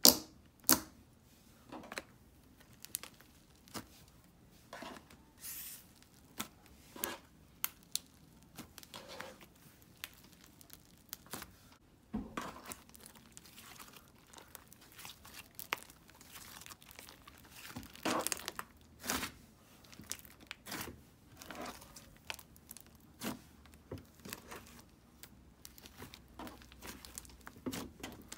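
Hands kneading, stretching and folding soft butter slime, making irregular sticky crackles, squelches and sharp pops as air pockets burst. The loudest pops come right at the start and about two-thirds of the way through.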